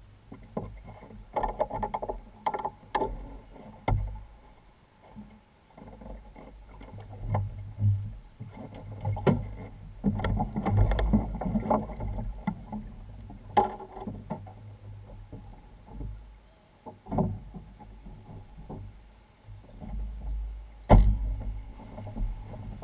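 Irregular knocks, bumps and rustling from a moored WaveRunner personal watercraft as a person climbs aboard and shifts about on its deck and seat, with a sharp knock near the end. The engine is not running.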